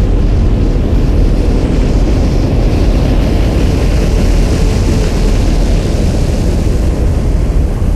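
Designed sci-fi spaceship sound effect: a loud, dense engine rumble with a hiss that swells toward the middle and eases off again, like a spacecraft passing by.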